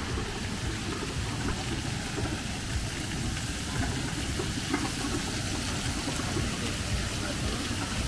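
Running and splashing water from water-park slides and sprayers: a steady noisy rush with a low rumble underneath.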